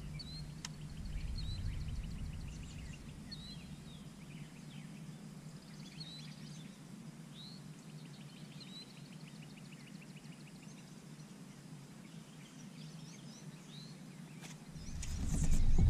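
Small birds singing along the shore in short chirps and rapid trills over a faint low hum. A low rumble rises near the end.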